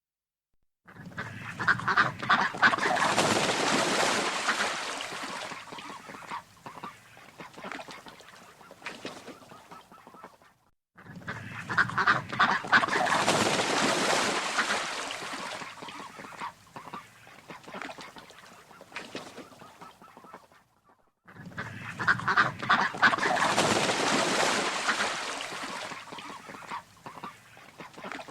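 A flock of waterfowl calling: a dense burst of many overlapping calls that tails off over several seconds. The same burst plays three times, with a short silence between each.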